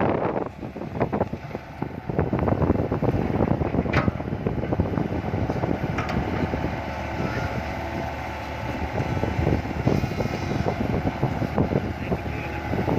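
Heavy diesel machinery running, an excavator loading soil into a dump truck, with a few sharp knocks and wind buffeting the microphone.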